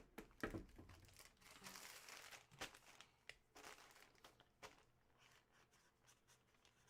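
Faint crinkling and rustling of trading-card packaging being handled, with a few light clicks, mostly in the first few seconds.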